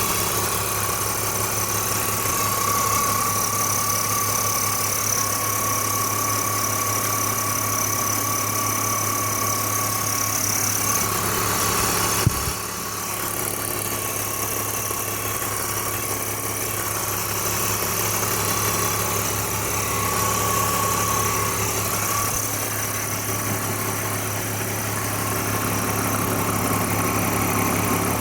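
BMW E46 330i's 3.0-litre straight-six engine idling steadily, with a thin steady whine over the idle. A single sharp click about twelve seconds in, after which it runs a little quieter.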